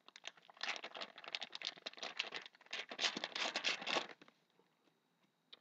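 Trading card pack wrapper being torn open and crinkled in the hands, a dense crackling that stops about four seconds in, followed by one small click near the end.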